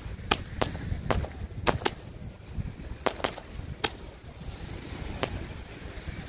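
Handheld roman-candle firework tube firing its last shots: about nine sharp pops, spaced further apart toward the end, the last about five seconds in, as the tube runs out. Low wind rumble on the microphone underneath.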